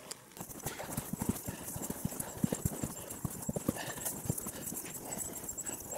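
Footsteps of a hiker walking on a mountain path, with gear and the handheld camera jostling: an irregular run of short knocks and clicks, several a second.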